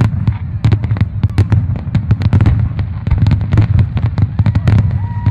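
Aerial fireworks shells bursting in rapid, irregular bangs, several a second, over a continuous low rumble of booms.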